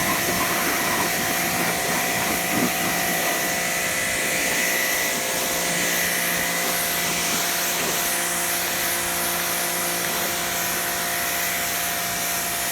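Pressure washer running steadily, a constant motor-and-pump drone with a thin whine, and its water jet hissing on concrete.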